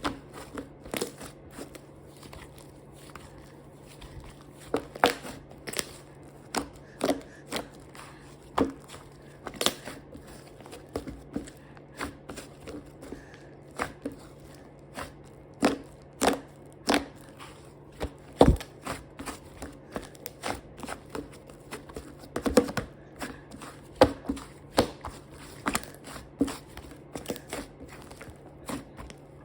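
Slime being squeezed, stretched and poked by hand, giving irregular sharp clicks and small pops, one to several a second.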